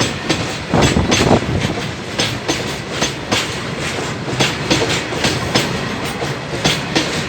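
Goods train wagons rolling past, their wheels clacking over rail joints in an uneven run of knocks over a steady rumble, the heaviest knocks about a second in.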